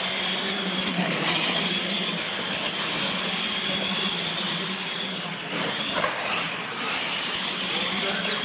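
Radio-controlled monster trucks running flat out on a concrete floor: their electric motors and gearing give a high whine that wavers with the throttle. A steady low hum sits underneath.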